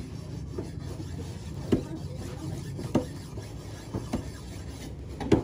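Cleaver chopping through a mackerel tuna (tongkol) fillet onto a wooden chopping block: several sharp knocks a second or so apart, the loudest near the end, over a steady background hum.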